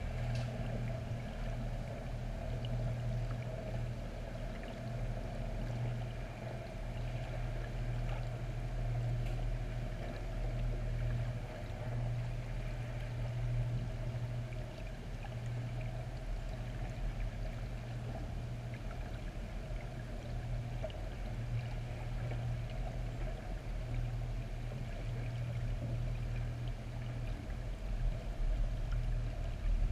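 Muffled underwater harbor noise heard through a GoPro's waterproof housing: a steady low hum with a faint wash of moving water, growing louder near the end.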